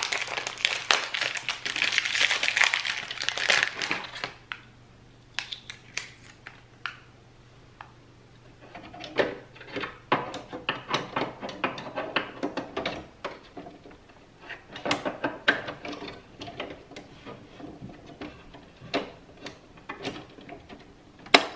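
Crinkling plastic wrapping for the first four seconds or so. Then scattered light clicks and knocks of plastic as ink cartridges are pushed into the carriage of an HP Envy Photo 7155 printer, with a sharp click near the end as one snaps into place.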